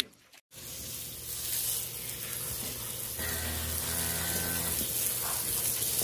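Water hissing from a hand-held hose spray nozzle as it washes a wet newborn calf lying on a concrete floor; the spray is steady throughout.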